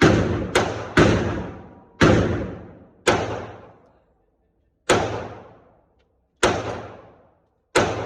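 Ruger-57 pistol (5.7×28mm) firing eight shots, each a sharp report that rings on for about a second. Three come quickly at the start, and the rest follow at slower, uneven intervals.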